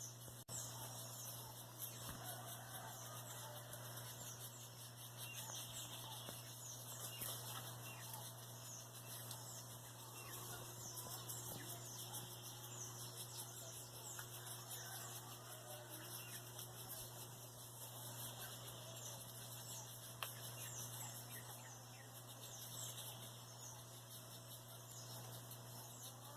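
Faint, high-pitched animal chirps: many short, falling calls repeated irregularly throughout, over a steady low hum.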